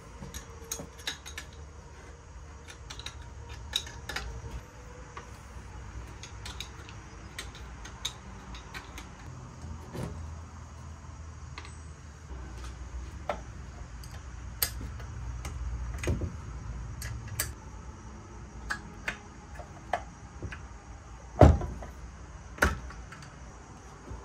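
Scattered metallic clicks and clinks of hand tools and parts as a Tillotson 212 engine is worked on and taken apart, over a steady low hum. Two louder knocks come near the end.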